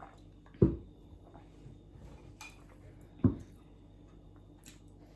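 Two short, low gulps picked up close to the microphone, about half a second in and again after three seconds, as a drink is swallowed.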